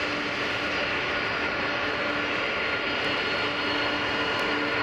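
Boeing 747-400 jet engines running at taxi power: a steady rush of jet noise with several steady whining tones held throughout.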